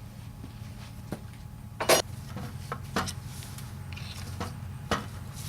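A few sharp knocks and clinks as turbo pedestal parts and tools are handled while the actuator rod is worked loose. The loudest knock comes about two seconds in, with others about a second and three seconds later, over a steady low hum.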